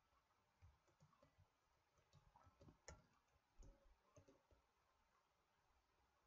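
Near silence with a handful of faint, scattered clicks, the clearest about three seconds in: clicks of a computer's mouse and keyboard during code editing.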